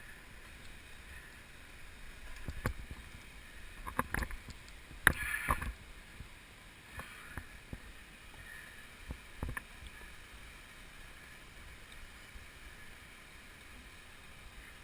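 Faint steady outdoor noise with a handful of short knocks and rustles, the loudest a brief scuffle about five seconds in.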